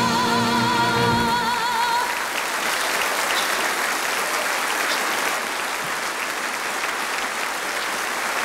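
The song's final note, sung and held with a wide vibrato over the instrumental backing, ends about two seconds in. Audience applause follows and keeps going.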